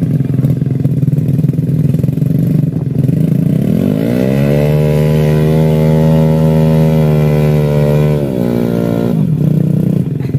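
Small motorcycle engine running at low revs, then revved up about four seconds in and held high for about four seconds before dropping back down near the end. It is straining to move the bike, loaded with heavy sacks, through deep mud.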